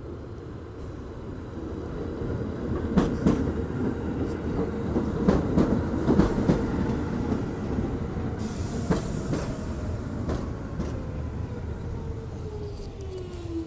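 R46 subway train running into the station past the platform, its wheels clacking over the rail joints in a run of sharp clicks. A short hiss comes about nine seconds in. Near the end the traction motor whine falls steadily in pitch as the train slows.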